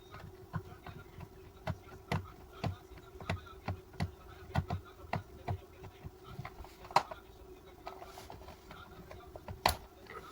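Irregular clicks and knocks of small plastic toy-car parts being handled and pried apart, over a steady faint hum.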